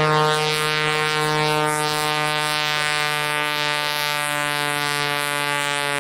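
400 hp Pitts S-2S aerobatic biplane on a low pass, its piston engine and propeller making a steady, buzzing drone at high power. The pitch sags slightly partway through and rises again near the end.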